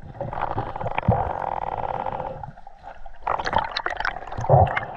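Underwater water noise picked up by a submerged camera in a river: gurgling and bubbling, with a run of sharp bubble pops and clicks in the second half.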